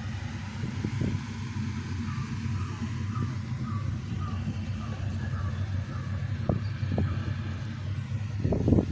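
Steady low running rumble of a vehicle, with a run of short high chirps, about two and a half a second, in the middle and a couple of knocks near the end.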